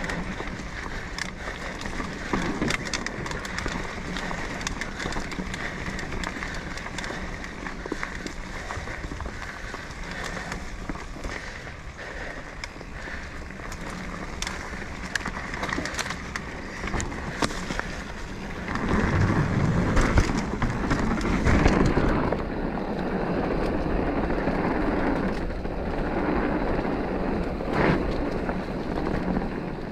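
Mountain bike riding along a dirt trail: tyres rolling on the ground, with the chain and frame clicking and rattling over bumps. About two-thirds through it gets louder with a low rumble for a few seconds.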